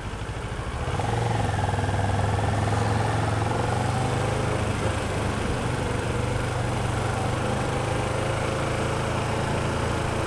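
Kawasaki ER-6f parallel-twin motorcycle engine running at low revs while creeping in slow traffic, a steady hum that picks up and grows louder about a second in, over general traffic noise.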